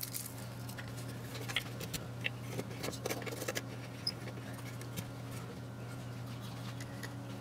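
Small clicks, taps and scratches of fingers handling a printed circuit board and its plastic screw terminal block, scattered irregularly over a steady low hum.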